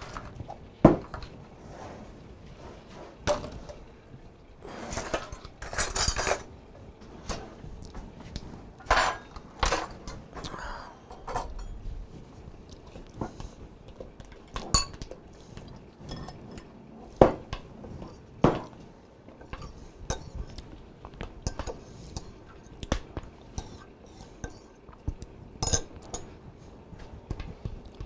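Kitchen utensils clinking and scraping against a mixing bowl while cream cheese frosting is worked: irregular knocks and short scrapes, with a longer scrape about five seconds in and a few sharp clinks.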